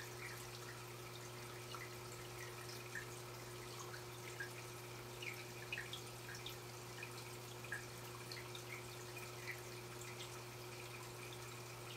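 Aquarium water sounds: a steady low hum with small water drips and plinks coming irregularly, a few a second.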